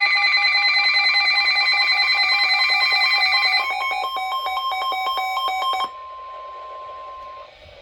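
Electronic emergency-alert tones ahead of a severe thunderstorm warning broadcast. A loud, rapidly pulsing chord of several tones lasts about three and a half seconds and gives way to a pulsing two-tone beep. Around six seconds in it drops to a single quieter steady tone, which cuts off shortly before the end.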